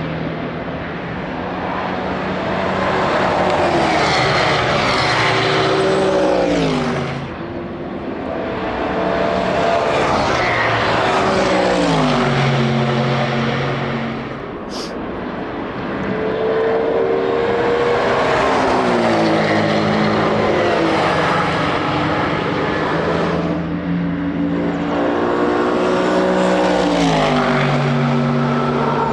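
Race cars passing one after another at speed, about four in turn, each engine note swelling as it approaches and then dropping in pitch as it goes by.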